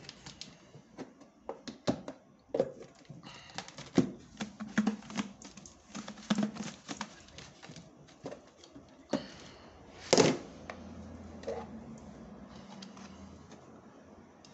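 Breaded croquettes rattling and knocking inside a closed plastic food container as it is turned and shaken to coat them, with irregular taps and clicks on the plastic. A louder knock comes about ten seconds in, and after it the sound is quieter.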